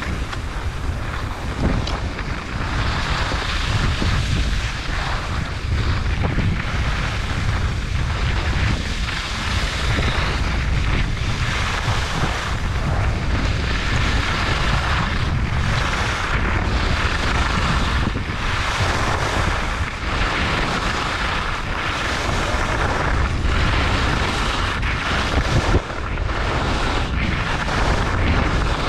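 Wind buffeting a skier's camera microphone, a steady low rumble, with the hiss and scrape of skis carving on groomed snow swelling and fading through the turns, and one sharp knock near the end.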